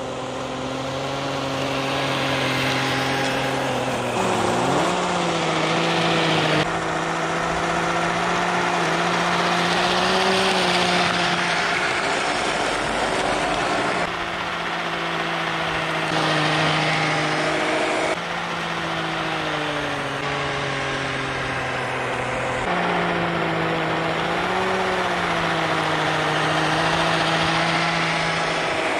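Traxxas 21T brushed electric motor spinning the impeller of an RC truck's 3D-printed snowblower, a steady droning whine over a hiss of thrown snow. The pitch jumps to a new steady note several times.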